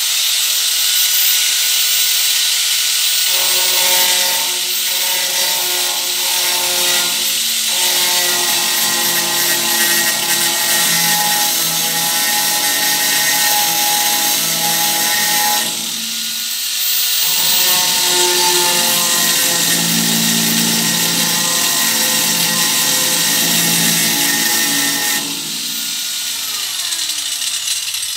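Corded angle grinder running at full speed and grinding against a steel pen frame in two long passes, with a short let-up about halfway. Near the end it is switched off and its pitch falls as the disc winds down.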